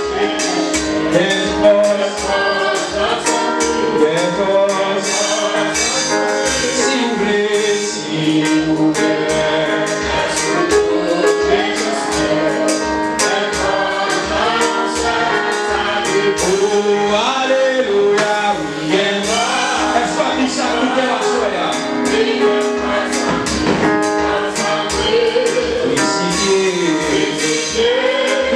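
A man sings a gospel worship hymn into a microphone, backed by a steady percussion beat.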